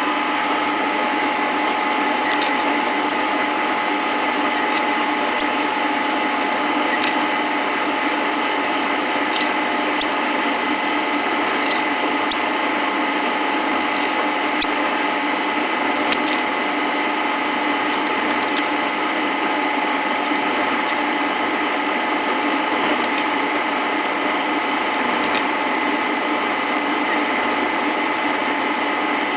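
Metal-turning lathe running steadily with a constant whine, a cutting tool machining a welded steel pulley, with scattered light ticks every couple of seconds.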